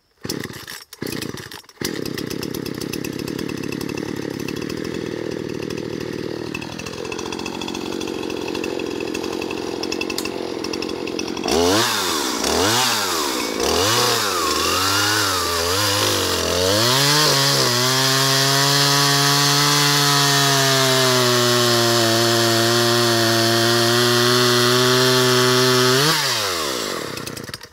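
Poulan Pro two-stroke chainsaw pull-started, catching after a few pulls and idling steadily. About eleven seconds in it is revved up and down several times, then held at high speed for about eight seconds while cutting through a dead log, and drops off near the end.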